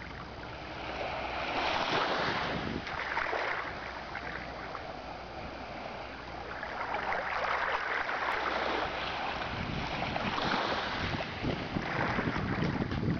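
Surf washing onto a beach, the hiss of the breaking waves swelling and falling away every few seconds.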